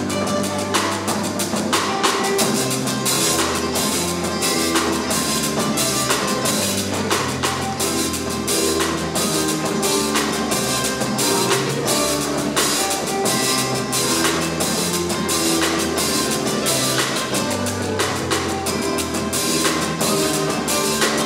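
Plucked-string ensemble of acoustic guitars with electric bass playing, over a steady beat from a drum kit.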